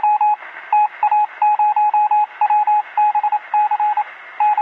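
Morse code: a single steady-pitched beep keyed on and off in irregular short and long pulses over a constant background hiss, like a radio signal.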